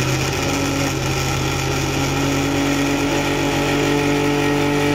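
Electric countertop blender motor running steadily at full speed, blending frozen strawberry pieces, sugar and milk into a milkshake.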